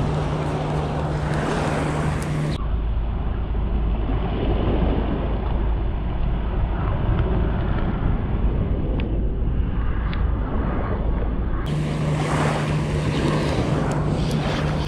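Wind buffeting an action camera's microphone over small waves lapping at a pebble shore, a steady rushing noise. For most of the middle it turns duller, with a heavier low rumble.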